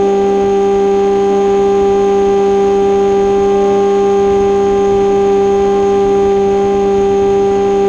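Electric pusher motor and propeller of an AR Wing flying wing, heard from the onboard camera, giving a steady buzzing drone at constant cruise throttle over a low rush of air.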